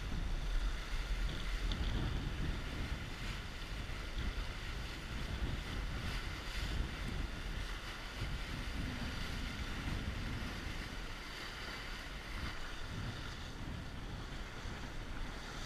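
Wind buffeting the microphone over water rushing and splashing along the hull of a Mirror sailing dinghy surfing down a wave, the rush easing slightly toward the end.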